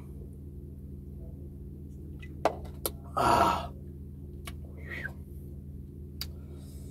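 A person's loud breathy 'ahh' gasp just after a swig from a can of soda, following two sharp clicks a moment before. A steady low hum underlies it.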